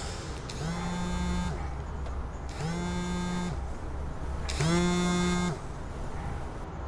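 Mobile phone buzzing with an incoming call: three buzzes, each about a second long and two seconds apart, the last one the loudest.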